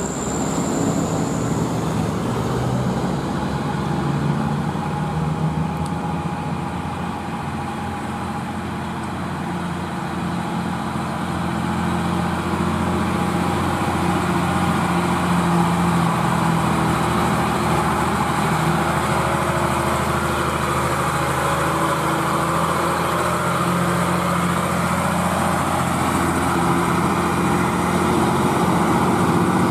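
Old Mitsubishi Fuso truck's diesel engine labouring up a steep hill under load, a loud steady drone that grows louder from about halfway through as the truck draws near and passes.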